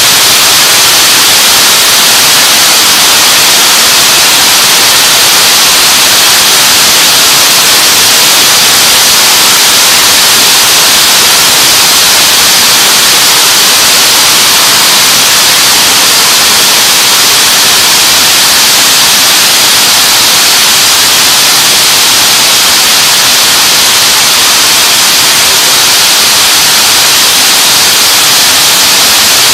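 Rows of thread braiding machines running together, their bobbin carriers whirling around the tracks: a loud, steady, even din, strongest in the upper range, with no distinct rhythm.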